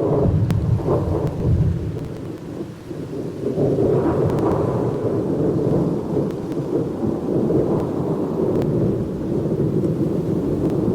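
Thunder breaking in suddenly at full loudness and rolling on as a long, low rumble that swells again about four seconds in, with rain beneath it.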